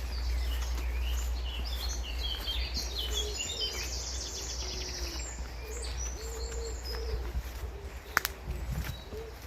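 Woodland birdsong: songbirds chirping, with a rapid high trill in the first half, over repeated low cooing notes of a pigeon. A single sharp click about eight seconds in.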